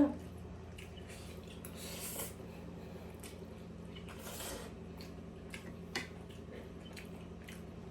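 Quiet eating sounds: faint chewing, wet mouth noises and small clicks of cutlery, with two breathy swells about two and four seconds in, over a steady low hum.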